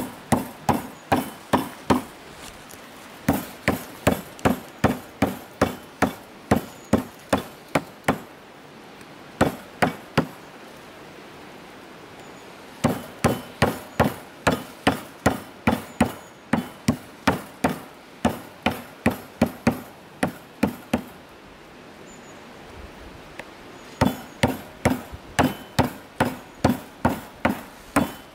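A hand-held stone pounding thin slices of raw meat flat on a wooden cutting board. The blows come in steady runs at about two a second, with several short pauses between the runs.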